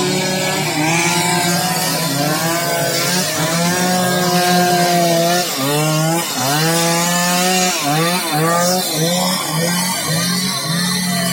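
Chainsaw cutting up a fallen tree: the engine runs at high revs, and its pitch dips and recovers several times in the middle as the chain bites into the wood.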